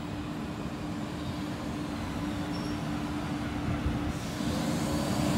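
MBTA Green Line light-rail train approaching, its running noise growing steadily louder, with a steady hum throughout and a hiss coming up about four seconds in.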